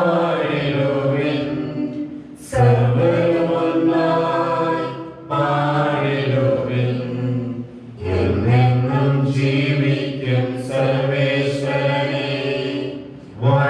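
Liturgical chant, sung in four long phrases with short breaks between them.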